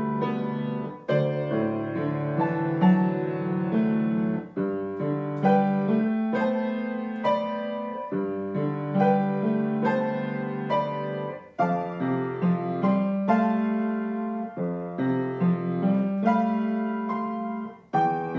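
Solo piano playing flowing, sustained chords and melody, with short breaks between phrases about a second in, around four and a half seconds, around twelve seconds and near the end.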